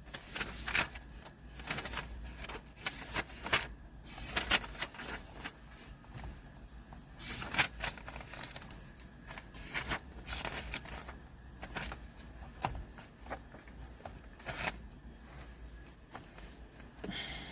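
Irregular clicks and rustles, some sharp and loud, over a faint low hum.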